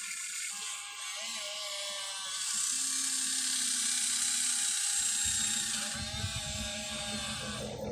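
Electric gear motors of a Huina 1593 radio-controlled excavator whirring and whining as it works, the sound shifting about two and a half seconds in and again about five seconds in, when a lower rumble joins.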